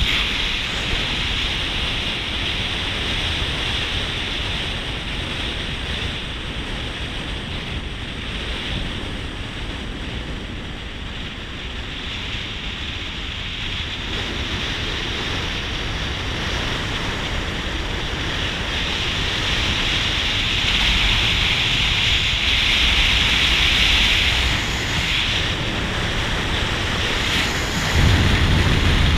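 Steady rush of wind noise and tyre noise from a car driving along a paved road, picked up by a camera outside the car. It grows louder about twenty seconds in and again near the end.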